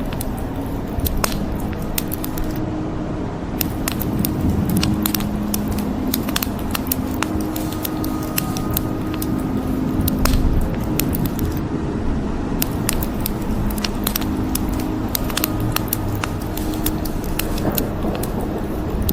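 Wood fire crackling, with frequent irregular sharp pops and snaps over a steady bed of rain hiss and a low rumble.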